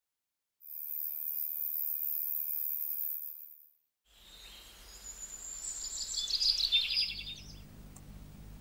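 Nature ambience: a steady high insect trill for about three seconds, then, after a brief gap, birds chirping. Near the end, a faint indoor hum and the soft tick of a wall clock.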